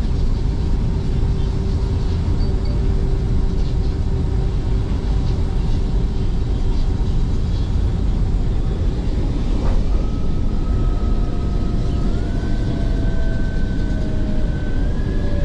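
MRT Line 3 light-rail train running on elevated track, heard from inside the car: a steady low rumble of wheels and running gear. A single click comes just before ten seconds in, followed by an electric whine that steps up in pitch.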